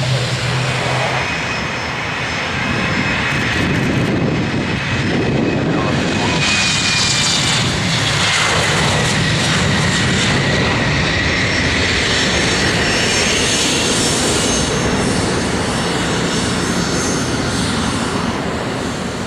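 Engines of a passing airliner, a loud steady noise that swells through the middle, with a high whine that slides down in pitch as the aircraft goes by.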